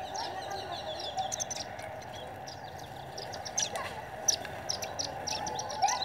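A feeding flock of small birds and parakeets chirping: many short, high calls overlapping, with a few louder ones from about three and a half seconds in.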